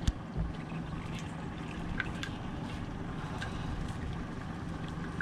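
A cast net being thrown and hauled back in from a small boat's bow: a sharp click at the start, then a steady low hum over water and wind noise while the line is pulled in, with a few faint clicks and a loud knock at the very end.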